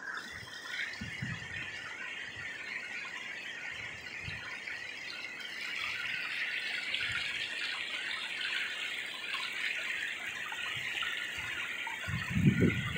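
Rushing water of a rain-swollen creek: a steady hiss that grows a little louder about halfway through, with a low bump near the end.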